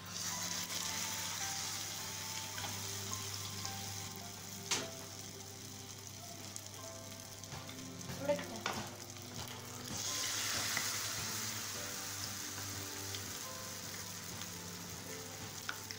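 Batter-coated boiled egg halves deep-frying in hot oil in a small pan: a steady sizzle and bubbling that surges as the first piece goes in at the start and again about ten seconds in as a second piece is added. A couple of light knocks come in between.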